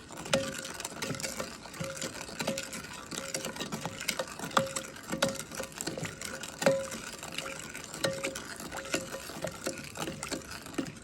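A spoon stirring sweet and sour sauce in a pot, knocking against the pot's side with a short ring at an irregular one to two strokes a second.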